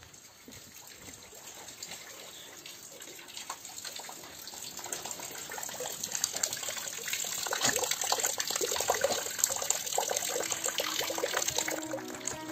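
Rain splashing into a galvanised metal bin brimming with rainwater: a dense patter of drops on the water surface. It grows louder from about four seconds in.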